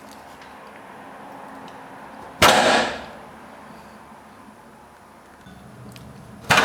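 Two sharp knocks, about four seconds apart, each fading away within half a second.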